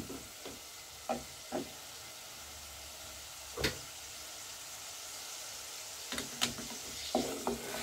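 Chicken pieces frying in oil in a metal pot, a steady sizzle, with a few short knocks of a wooden spatula against the pot. The loudest knock comes about three and a half seconds in, and there are a few more near the end.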